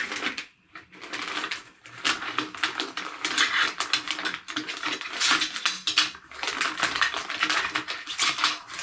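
A clear plastic bag crinkling and rustling as the blue plastic sections of a Numicon number rod track are pulled out of it, the sections clicking and clattering against each other and the table.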